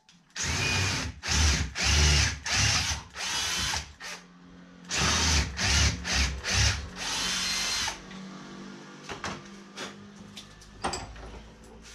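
Cordless drill drilling out a bolt hole to 7 mm, run in several short bursts and then in one longer run of about three seconds, its pitch rising and falling as the trigger is worked. After that come a few faint clicks of handling.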